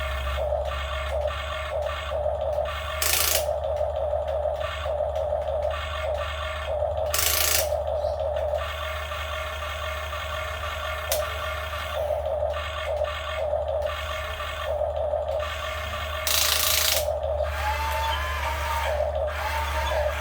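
Radio-controlled model excavator's motors and gears whirring under a low steady hum, the whine swelling and easing every second or so as the controls move the arm. Three short bursts of noise break in about 3, 7 and 16 seconds in.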